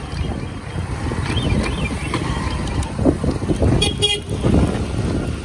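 Hero Glamour 125 motorcycle riding at low speed: a steady low rumble of engine and wind on the microphone. A short vehicle horn toot sounds about four seconds in.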